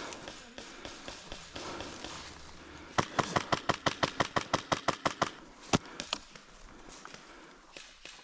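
An airsoft replica firing a rapid string of shots, about seven or eight sharp cracks a second, for a bit over two seconds starting about three seconds in, then one more single shot about half a second later.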